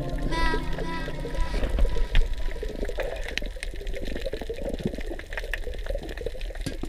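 Water sloshing and bubbling with many small irregular clicks, as picked up by a camera's microphone underwater. Steady background music and a short pitched tone sound through the first second and a half, then drop out.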